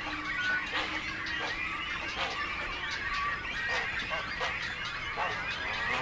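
A flock of water birds calling, many short calls overlapping into a steady chorus.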